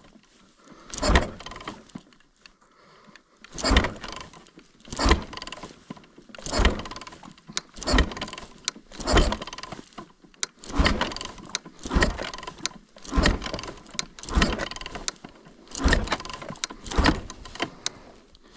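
Yamaha YZ450 four-stroke dirt bike being kick-started again and again, a thump about every second and a half, the engine turning over without catching and running.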